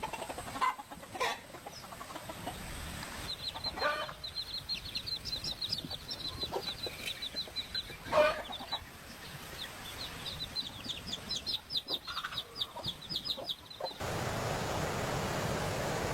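Chickens clucking, a few separate calls, with long runs of fast high-pitched chirping over them. Near the end this cuts off suddenly and gives way to a steady hiss.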